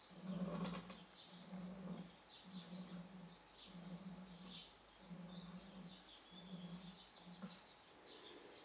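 Skate bearings of a homemade arrow spinner humming faintly in short bursts, about one a second, as a wooden arrow is flicked round on them by hand. Bird chirps in the background.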